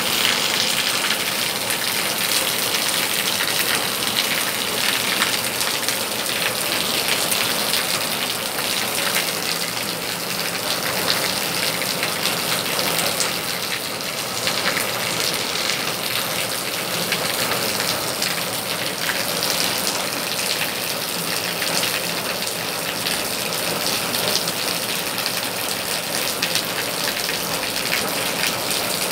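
Rain shower falling steadily: an even, dense hiss of rain.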